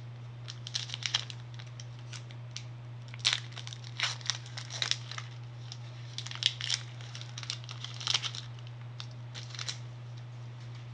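Foil wrapper of a Pokémon Crimson Invasion booster pack being torn open and crinkled as the cards are pulled out, in irregular crackling bursts.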